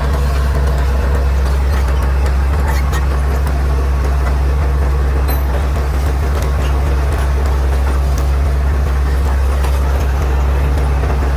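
Bulldozer's diesel engine running steadily with a deep, even drone, with faint scattered clicks over it.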